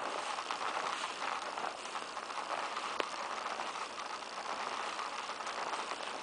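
Steady rustling and swishing of tall grass and undergrowth brushed by someone walking through it, with a sharp click about three seconds in.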